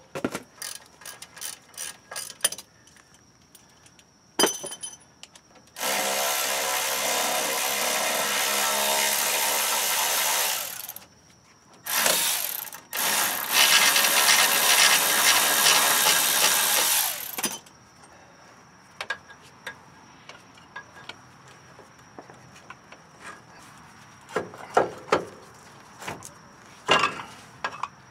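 A hand ratchet wrench clicking in quick strokes, then a power wrench running in two long bursts of about five and four seconds with a short blip between, spinning off bolts on a motorhome's front brake and suspension. Scattered small tool clicks and clinks follow.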